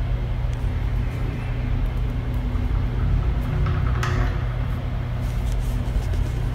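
A loud, steady low rumble with a droning hum, the unexplained noise a guard recorded from inside a restroom stall. A short rush of hissing noise comes about four seconds in.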